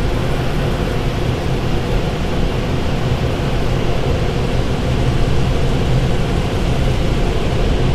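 Automatic car wash air dryers blowing at full force: a steady, loud rush of air heard from inside the car's cabin. They are blowing the rinse water off the car in the drying stage of the wash.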